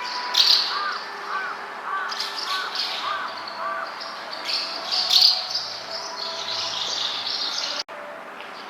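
Asian house martin chicks chirping in quick high clusters from the nest, loudest about half a second in and about five seconds in; the uploader wonders if they are calling their parents. Near the end the chirping cuts off abruptly.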